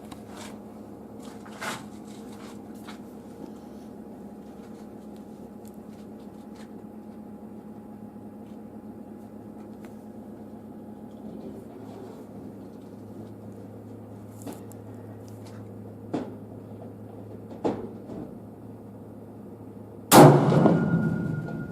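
A single supersonic 6.5 Creedmoor rifle shot from a Ruger Precision Rifle firing Hornady 120-grain A-MAX factory ammunition, near the end, its report ringing on afterwards. Before it, a long steady low hum with a few faint clicks.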